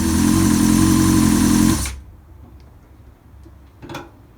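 Honda CBR 600 F4i inline-four engine running steadily, freshly rebuilt with new connecting-rod and main bearings and still being broken in, sounding full and healthy. It cuts off abruptly just under two seconds in, followed by a single brief knock near the end.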